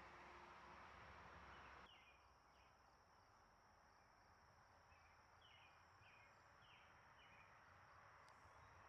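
Near silence: faint background with a steady high whine, where the hiss drops about two seconds in and a few faint short chirps follow.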